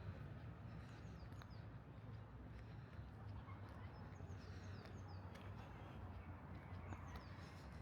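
Faint birdsong: small groups of short, high, down-slurred chirps every couple of seconds, over a steady low city hum.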